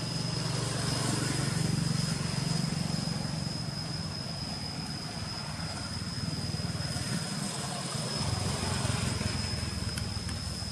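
Low engine rumble of vehicles passing on a nearby road, swelling twice, with a steady thin high-pitched whine over it.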